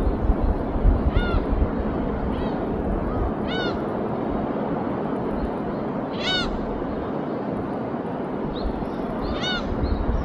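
Steady surf and wind noise on a sandy beach, with a bird giving short, harsh, crow-like calls several times, the loudest about six seconds in.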